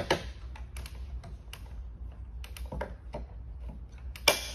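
Thule EVO Clamp roof-rack foot being tightened with its torque-limiting tool: a run of small ratcheting ticks and clicks, with louder sharp clicks at the start and about four seconds in as the tool clicks out at the set tension.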